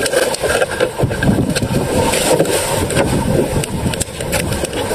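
Strong wind buffeting the microphone and choppy sea splashing against the hull of a small outrigger fishing boat, a steady rush with an uneven low rumble.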